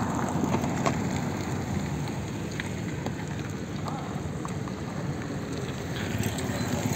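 Motorbike engine running while riding, mixed with a steady rush of wind and road noise on the microphone and a few faint ticks.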